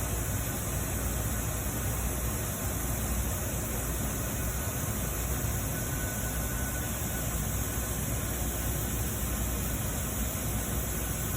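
Steady background hiss with a low rumble underneath, unchanging throughout, with no distinct sounds.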